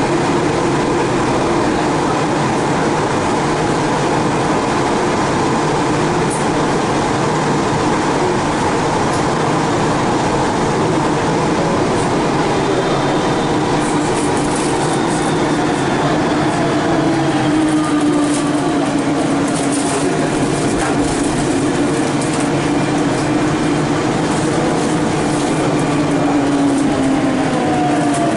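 Siemens VAL 208 rubber-tyred driverless metro train running through a tunnel, heard from inside the car: steady running and rolling noise with a motor whine. The whine falls in pitch near the end.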